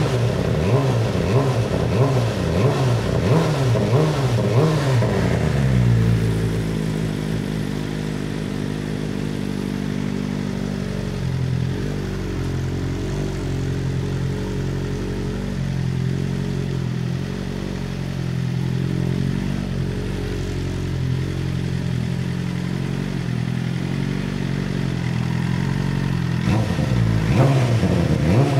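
BMW M1000RR inline-four engine running through a new full titanium Arrow header and the stock Akrapovic muffler, still cold after start-up. It is blipped up and down several times, settles into a steady idle about six seconds in, and is revved briefly again near the end.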